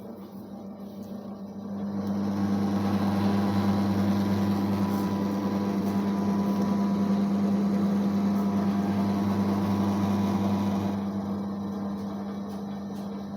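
Electric motor of a dough mixer converted from a used washing machine, running with a steady hum. It gets louder about two seconds in and drops back near the end.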